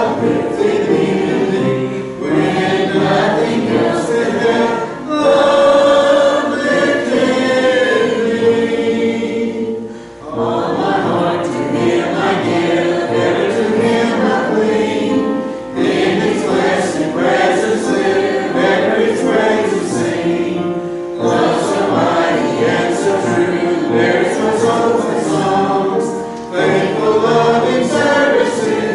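Church congregation singing a hymn together, in sung phrases with short breaks between lines.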